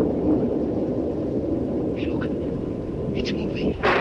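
A continuous low rumble of thunder, with a few faint crackles and a louder sudden crash near the end.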